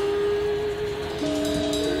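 Music of slow, sustained held notes, with a new pair of notes coming in a little over a second in.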